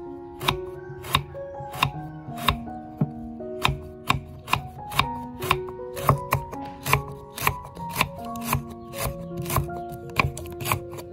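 Large knife chopping lemongrass stalks into thin rings on a thick round wooden chopping block, a steady run of sharp knocks at about three a second.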